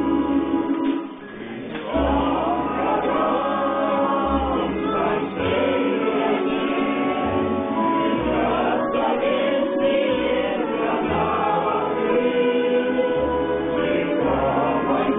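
Folk ensemble singing a Soviet wartime song in chorus over a steady bass accompaniment, with a short break between phrases about a second in.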